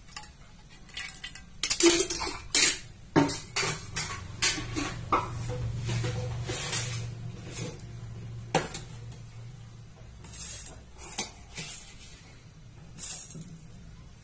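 Metal kitchen utensils and pots clinking and clattering in a string of sharp knocks, busiest in the first few seconds, with a low steady hum underneath through the middle.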